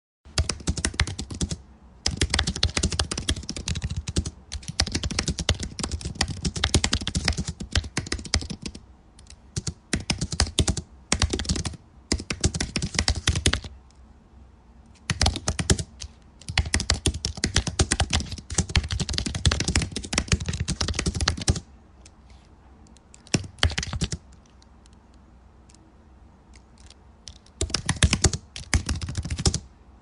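Fast typing on a computer keyboard: quick runs of key clicks lasting a few seconds each, broken by short pauses. In the last third the typing thins to a long lull with one brief flurry, then a final fast run near the end.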